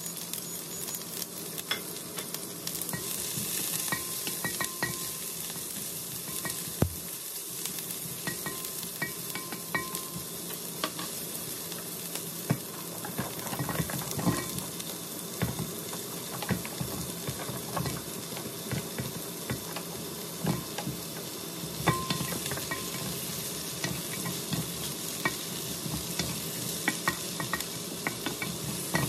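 Chopped onions and ginger sizzling in hot oil in a wok, stirred with a wooden spatula that scrapes and knocks against the pan. About halfway through, chunks of pumpkin are tipped in with a clatter and the frying and stirring go on.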